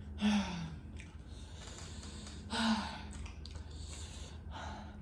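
A person breathing out hard in three short gasping huffs, a couple of seconds apart, reacting to the burn of very hot pepper sauce.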